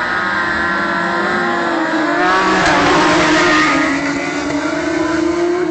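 Several racing motorcycles passing at speed on a closed public road, their engines running hard at high revs. The loudest pass comes about two seconds in, with engine pitches dropping as the bikes go by.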